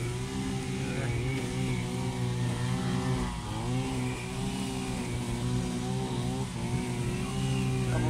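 Small petrol engine of a brush cutter running steadily as grass is cut, its pitch dipping and coming back up now and then, most deeply about three and a half seconds in.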